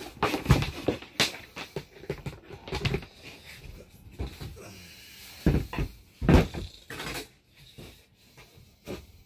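Knocks, clicks and thumps of a timber beam and a compact router being handled and set down on a wooden floor, with two heavier thuds about five and a half and six and a half seconds in.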